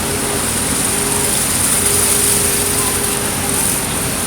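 Hot-water pressure washer running steadily: a small engine's drone under a steady high hiss of the high-pressure spray on concrete, with the burner lit to heat the water.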